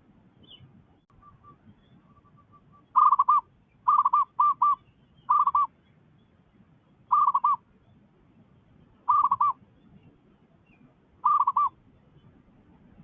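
Zebra dove (perkutut) cooing close by: short, loud phrases of quick rolling notes, repeated about seven times at irregular gaps of one to two seconds. A few faint notes come before the first phrase.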